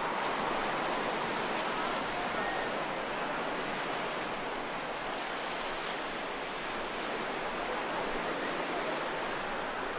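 Steady wash of sea surf on a beach, a constant rushing hiss with no distinct wave crashes standing out.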